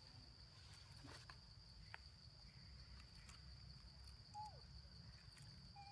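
Near silence: a faint, steady, high-pitched insect drone, like crickets, over a low outdoor rumble. About four seconds in, a short faint call falls in pitch.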